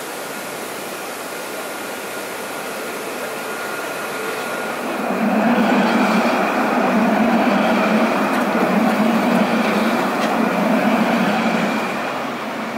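Alstom Citadis tram passing close by, its running hum and rolling noise swelling about five seconds in, staying loud and steady for several seconds, then easing near the end.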